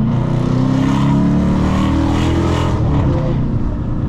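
Dodge Charger R/T V8 engine and exhaust pulling under throttle, its pitch rising gently for about three seconds, with rushing noise on top, then easing off.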